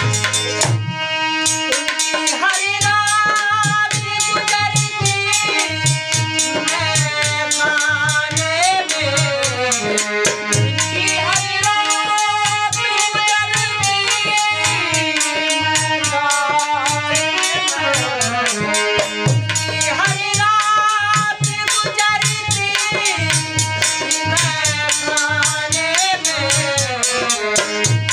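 Ghazal performance: a man singing a slow, wavering melody over harmonium, with a dholak drum beating a steady rhythm and a jingling rattle keeping time throughout.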